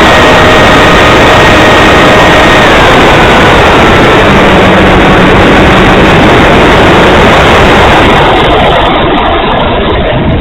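Loud wind rush on the microphone of an FPV Arrow RC plane in flight, over the steady whine of its electric motor and propeller. The whine drops in pitch about three seconds in, and the wind noise eases near the end.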